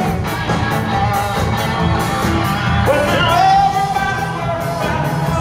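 Live rock band playing, a man singing over electric guitar, bass and a steady drumbeat, heard from the audience in a large concert hall.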